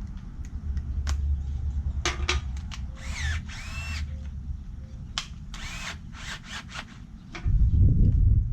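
Power drill fitted with an 8mm socket and extension running, backing out 8mm bolts on a GY6 50cc scooter, with sharp clicks and a few short squeaks. It gets louder about seven and a half seconds in.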